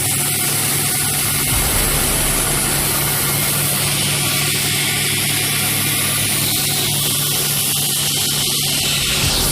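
Chilli powder mixer machine running steadily: a constant low hum under a loud, even rushing noise.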